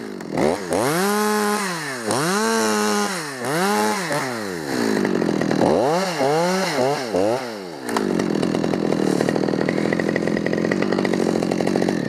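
Two-stroke chainsaw revved up and down in a run of throttle blips, about five or six swells in pitch, then held steady at high revs from about eight seconds in.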